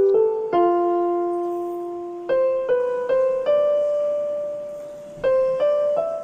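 Background solo piano music: slow, gentle notes struck singly or in small groups and left to ring and fade.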